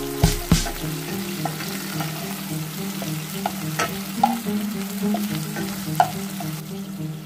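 Wooden spatula stirring and scraping diced tomato, onion and garlic sautéing in oil in a nonstick pan, with a sizzle and a few sharp taps of the spatula on the pan, near the start, about four seconds in and near the end. Background music plays underneath.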